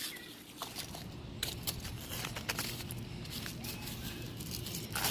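Cardboard being handled and scratched: scattered light clicks, taps and short scrapes at an uneven pace.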